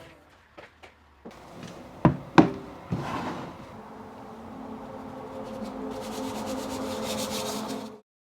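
Three sharp knocks or clatters, then a steady mechanical hum with a hiss that grows louder before stopping abruptly near the end.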